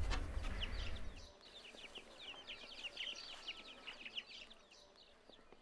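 Many young chickens peeping in a rapid chorus of short, high, falling cheeps, over a low hum that stops about a second in.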